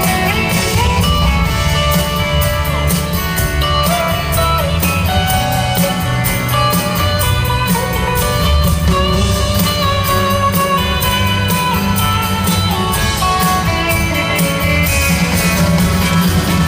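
Live rock band playing an instrumental passage with guitar to the fore over bass and drums, cymbal ticks keeping an even beat.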